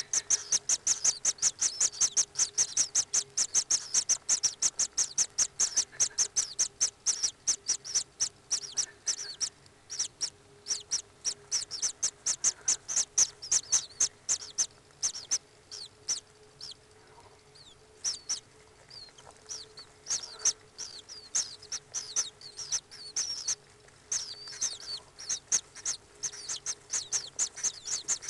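Common kingfishers calling inside the nest chamber: a fast, steady series of short, high, falling calls, about five a second, with a short lull about two-thirds of the way through.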